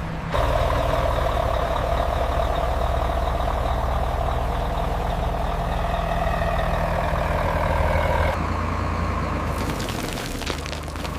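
A heavy truck engine running steadily, its sound changing abruptly about a third of a second in and again about eight seconds in. A crackling noise comes in near the end.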